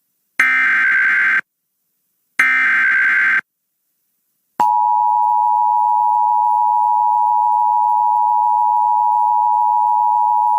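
Emergency Alert System SAME header: the last two of three short bursts of screeching digital data tones, about a second each with a second's gap, then a loud steady attention tone starts about four and a half seconds in and holds. It signals the start of a National Weather Service severe thunderstorm warning.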